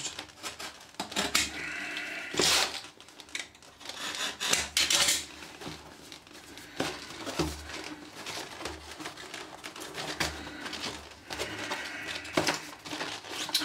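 Cardboard box being opened and handled: a utility knife scraping and slicing through strong packing tape, with irregular rustles, scrapes and knocks of cardboard, a few strokes louder than the rest.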